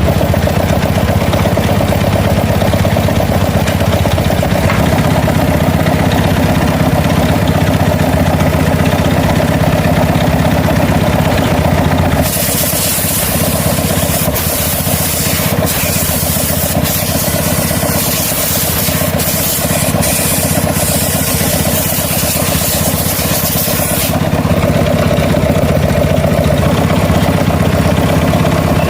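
Motorcycle engine idling steadily. In the middle, a loud hiss with a few sharp ticks comes in abruptly for about twelve seconds, then cuts off.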